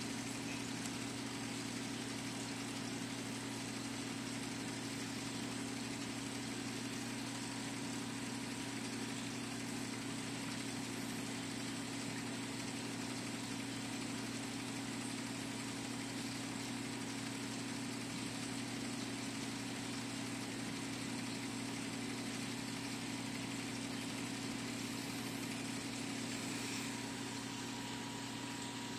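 Steady low electrical hum with an even hiss underneath, from the reef aquarium's running pumps and equipment.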